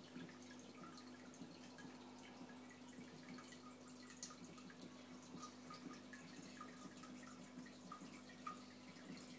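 Faint water dripping and bubbling in a home aquarium, many small irregular drips, over the low steady hum of the tank's pump.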